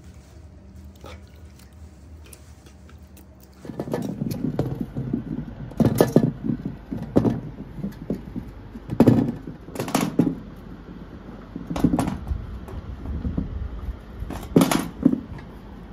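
Raw green mangoes knocking and thudding onto a large metal tray as they are taken from a bowl and handled, a string of irregular sharp knocks starting about four seconds in.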